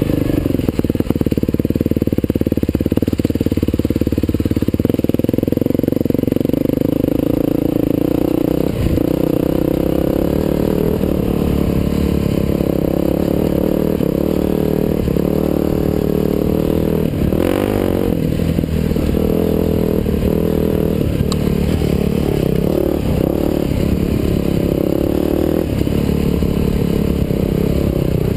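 Husqvarna TE511 dirt bike's single-cylinder four-stroke engine running hard on a trail, heard from the rider's helmet. The engine pitch climbs over the first several seconds, then keeps rising and falling as the throttle opens and closes, with a short rushing burst about two-thirds of the way through.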